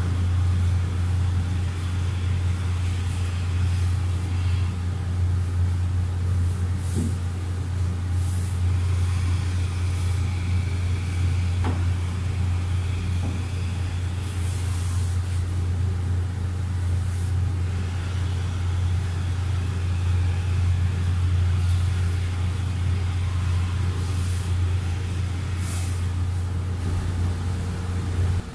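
A steady low hum, like a motor or engine running, cuts off suddenly near the end, with faint rustling of cotton bed sheets being smoothed and tucked under it.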